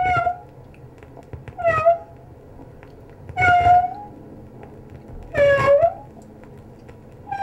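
A cat meowing over and over, one short call about every two seconds.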